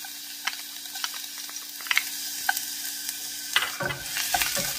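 Minced garlic frying in hot oil in a small nonstick saucepan: a steady sizzle with scattered sharp pops, under a low steady hum. Near the end the sizzle grows louder, with soft knocks as the garlic is stirred.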